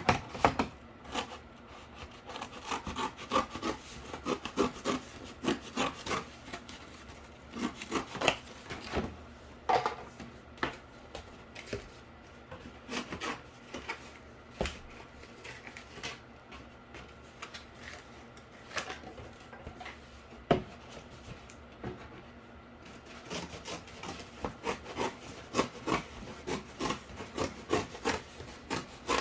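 Cardboard being cut and handled: a run of irregular scratchy strokes and small clicks as the blade works through the board.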